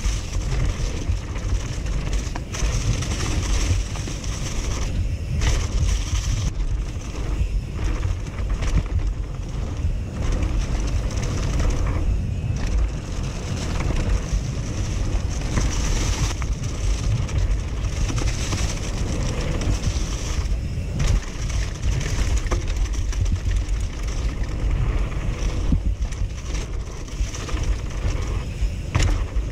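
A mountain bike ridden fast down a dirt trail strewn with dry leaves: wind buffeting the microphone in a steady low rumble, mixed with the hiss of the tyres rolling over dirt and leaves.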